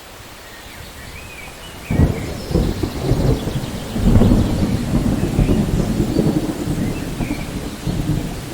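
Thunderstorm: steady rain, then thunder breaks suddenly about two seconds in and rolls on as a long low rumble that swells again around four seconds and slowly eases. Faint bird chirps sound now and then above the storm.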